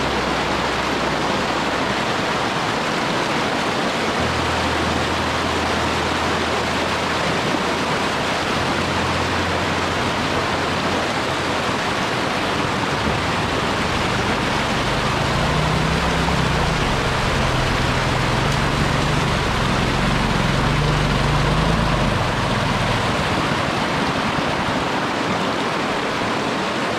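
River rapids rushing steadily over rocks, a loud constant wash of whitewater. A low wavering rumble joins in through the middle.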